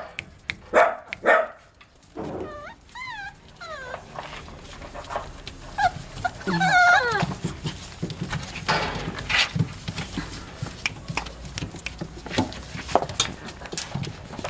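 Dachshund puppies yapping a few times, then whining in high, wavering cries twice, with small scratches and rustles of paws on newspaper underneath.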